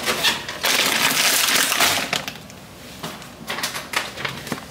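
Plastic grocery packaging crinkling and rustling as it is handled. It is loudest for the first two seconds, then turns to softer rustles and small clicks.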